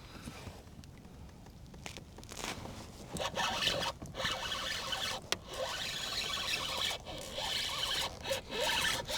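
Spinning fishing reel being cranked, a rasping whir that comes in spells with short breaks from about two seconds in.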